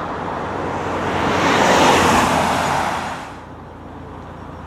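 A car passing on the road, its tyre and engine noise swelling to a peak about two seconds in, then cut off sharply a little after three seconds, leaving a quieter steady background hum.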